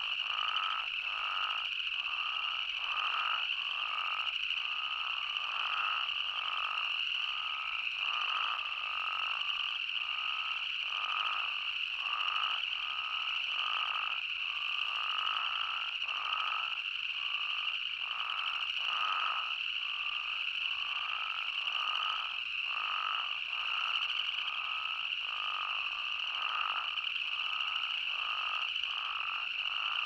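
Chorus of spadefoot toads calling: short, overlapping calls repeating about once a second, over a steady high-pitched hum that runs throughout.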